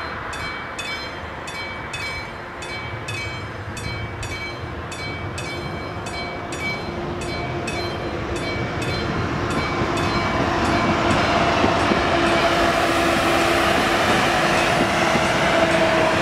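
Level-crossing warning bell of an AŽD-71 crossing ringing in even, rapid strokes, about two a second. From about eight seconds in, an approaching electric multiple unit grows louder with a steady whine and rail noise, and drowns out the bell near the end.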